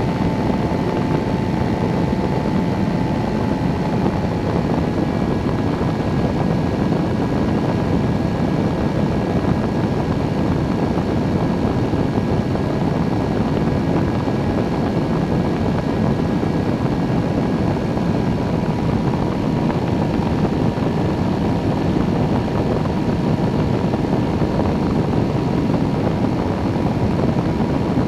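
Weight-shift microlight trike in cruise: its engine and pusher propeller run with a steady, unbroken drone mixed with rushing air, heard from a camera mounted on the wing, with a thin steady whine above the drone.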